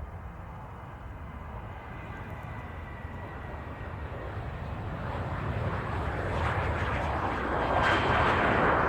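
Jet engines of a WestJet Boeing 737, a twin-engine airliner, at takeoff power, a rushing roar with a faint whine that grows steadily louder as the jet approaches on its takeoff run and climb-out.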